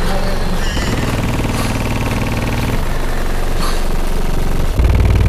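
Deep bass from a single Sundown Nightshade 24-inch subwoofer in a ported box tuned to about 23 Hz, heard from inside the truck cab. It plays long sustained low notes, with a buzzing rattle riding on top, and jumps much louder near the end.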